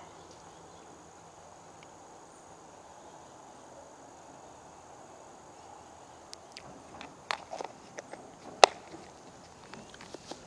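Insects chirring steadily as a faint high background drone. A scattering of sharp clicks and knocks starts about six seconds in, the sharpest about two seconds before the end.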